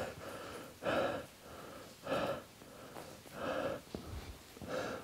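A man breathing hard close to the microphone: five short breaths, each a little over a second apart.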